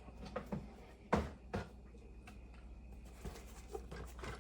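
Handling noise: a few light knocks and taps, scattered and irregular, the sharpest about a second in and another soon after, over a faint low room hum.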